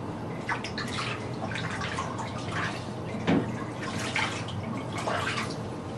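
Bath water splashing and dripping in a tub as a small child is washed, in short irregular splashes.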